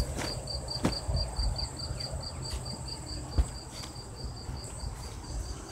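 Insects chirping: a high pulsed chirp repeating evenly about four times a second over a steady high insect hum. Beneath it a low rumble, with two short knocks about one and three and a half seconds in.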